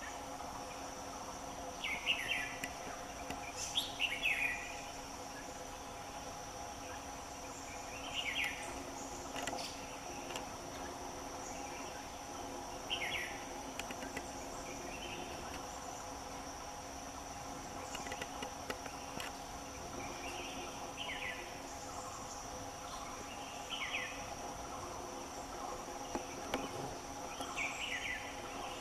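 Forest insects droning steadily with a constant high whine, while a bird repeats a short falling call every few seconds.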